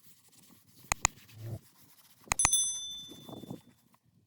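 Two quick double clicks about a second and a half apart, the second followed by a short high metallic ring that fades within about a second, with faint rubbing between them.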